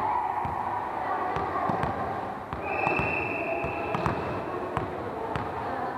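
Volleyball bounced several times on a wooden gym floor before a serve, a run of sharp thuds. Partway through, a referee's whistle is blown once for about a second, the signal to serve.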